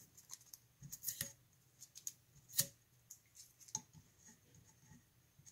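Blue painter's tape being picked at and peeled off a wooden rifle stock: faint, scattered crackles and ticks, the sharpest about halfway through.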